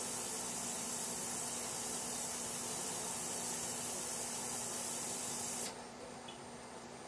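A steady spraying hiss that cuts off suddenly about five and a half seconds in.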